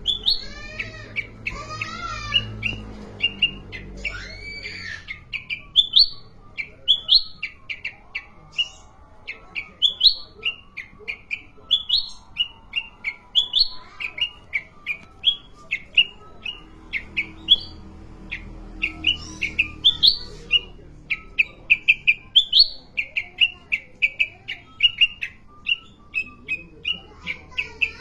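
Kutilang emas, a bulbul, singing: a long run of short, sharp chirping notes, about two a second, with a few warbled phrases near the start.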